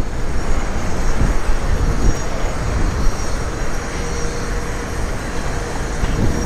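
Wind rushing over the microphone and road rumble from a bicycle riding along a paved city road: a steady, loud noise with no pauses, joined by a faint steady hum about halfway through.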